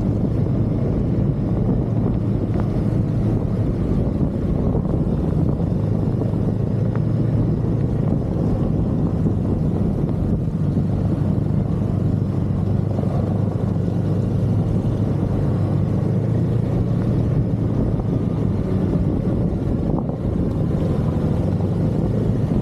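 Snowmobile engine running at a steady speed under way, a loud, even drone that holds one pitch.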